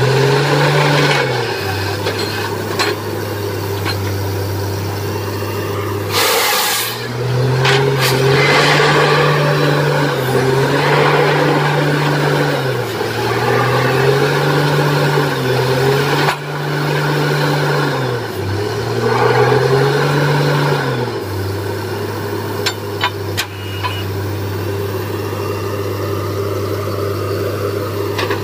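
Borewell drilling rig's diesel engine running under load, its pitch rising and falling several times as it is revved up and eased back. There is a brief loud rush of noise about six seconds in and a few sharp metallic clicks near the end.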